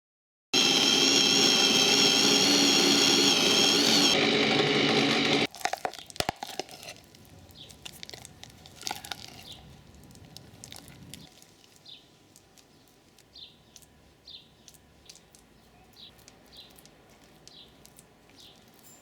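Blender motor running hard and straining on a thick frozen ice cream mixture for about five seconds, then cutting off suddenly. Scattered faint clicks and scraping follow.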